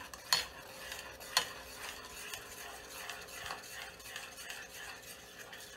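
A spoon stirring melted chocolate and butter in a small stainless steel saucepan: soft scraping with a few sharp clinks against the pan, the two loudest about a third of a second and a second and a half in.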